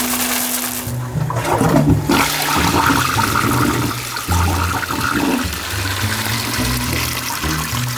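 Water rushing steadily, with shifting low tones underneath.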